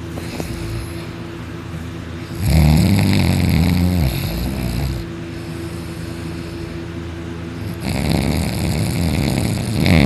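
A person snoring very hard in deep sleep: two long snores, one starting about two seconds in and another near the end, each lasting a couple of seconds, over a faint steady hum.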